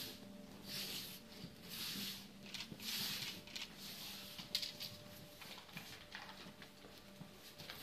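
Faint soft swishes and rustles, several in a row about a second apart, over a faint steady hum: the quiet movement sounds of an iaido kata.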